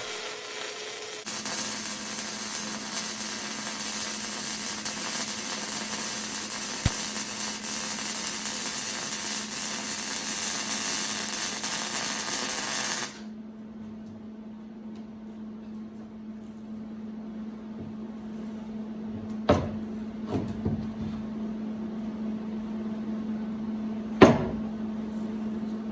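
Welder running a long bead on a steel crossmember: a loud, steady noise that starts about a second in and cuts off suddenly after about twelve seconds, over a low steady hum. Two sharp knocks follow later on.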